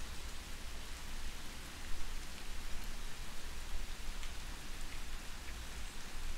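Soft rain falling steadily: an even hiss with a few faint drop ticks, over a low rumble.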